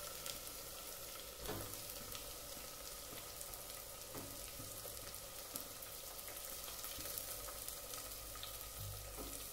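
Sliced onions sizzling steadily in hot mustard oil in an aluminium pressure cooker, frying with the whole spices. A couple of faint knocks are heard, one about a second and a half in and another about four seconds in.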